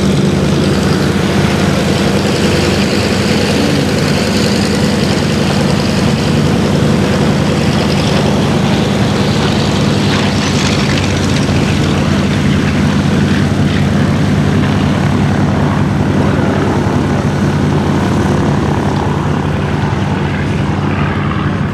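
Douglas DC-3's twin Pratt & Whitney radial engines running steadily while the aircraft taxis, an even, unbroken drone.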